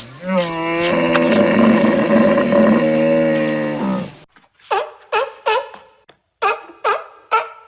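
A cow mooing once, a long call of about four seconds that rises in pitch at the start and then holds steady. After it come two quick runs of short, higher-pitched animal calls from another animal.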